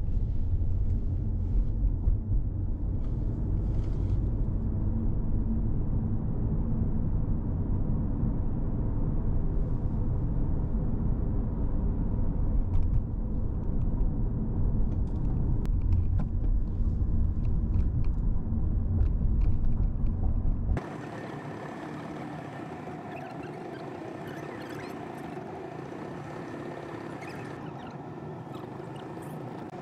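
Road noise and low rumble inside a moving car's cabin at highway speed. About two-thirds of the way through it cuts abruptly to a quieter, steadier hum with faint tones in it.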